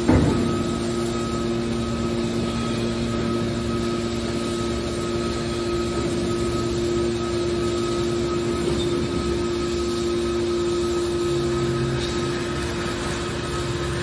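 Hydraulic scrap metal baler running: a steady hum and whine from its hydraulic power unit while the cylinders swing the press lid, with a sharp metallic clunk right at the start.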